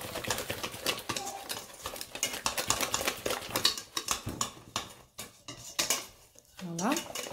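Soft semolina-and-flour dough being mixed in a stainless steel bowl by hand and spatula: quick irregular scraping and knocking against the metal bowl, easing off briefly about five seconds in.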